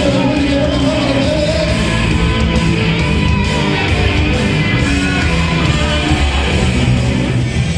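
Cumbia music with a heavy, continuous bass line, and a gliding voice or lead line in the first second or so.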